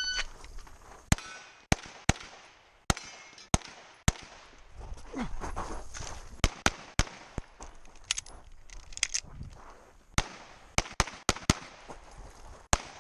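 A shot timer's short electronic beep at the start, then a competitor's pistol firing more than a dozen shots in uneven strings: about six fairly quick shots, a short pause, then more pairs and strings of shots to the end.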